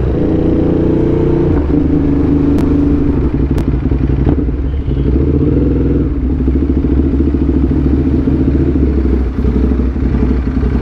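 Motorcycle engine running steadily, its note shifting slightly about halfway through.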